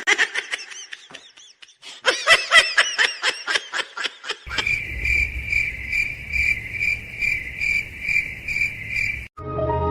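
High-pitched chirping: a run of quick arched chirps, about five a second. From about halfway it turns to a steady pulsing chirp, about two and a half a second, that stops abruptly near the end.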